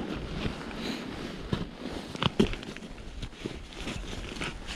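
Irregular crunching and crackling of ice and snow being handled, with a few sharper knocks in the middle.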